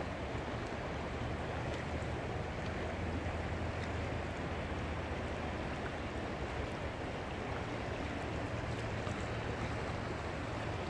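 Steady rush of a shallow river running over riffles, an even noise with a low rumble underneath.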